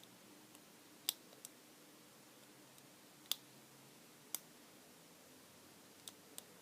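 Lock pick clicking against the pins inside an Abus/Brady 32.5 mm lockout padlock: a handful of short, sharp clicks spread irregularly over several seconds during picking.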